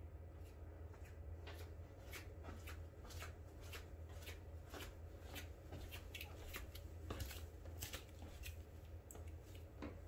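Flip-flops slapping against the feet and the floor as a person walks down a hallway: a quick, uneven run of slaps, two or three a second, loudest a little past the middle, over a steady low hum.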